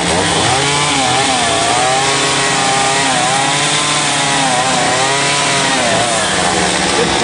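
Chainsaw carving wood, its engine pitch rising and falling over and over as the cuts load and release it.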